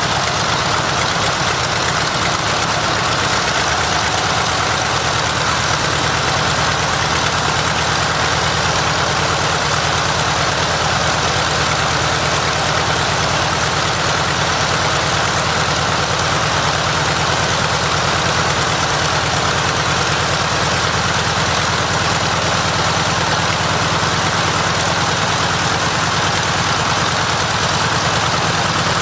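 Mitsubishi A6M Zero's Nakajima Sakae 14-cylinder twin-row radial engine running steadily at constant speed during a ground run, with a fast even pulse.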